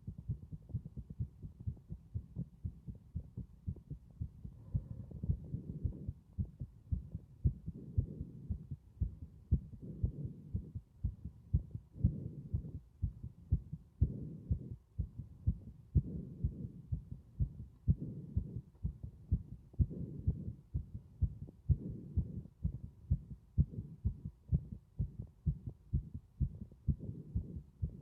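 Human heartbeat, a steady run of low, regular beats. Breath sounds swell and fade over it about every two seconds.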